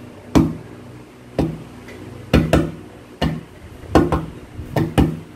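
A child's hand tapping on a table, about nine sharp taps in an uneven rhythmic pattern of single taps and quick pairs, played out as a rhythm exercise. A steady low hum lies underneath.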